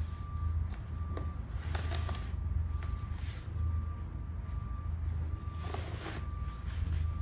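Cardboard drawers of a white paperboard presentation box sliding out about two to three seconds in, then pushed back in about six seconds in, with a dry scraping of board on board. A steady low hum and a faint repeating tone run underneath.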